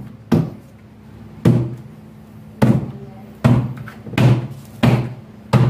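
A hand slapping down on the plastic top panel of a Tabitha cabinet to seat it: seven hollow plastic thumps, coming faster toward the end.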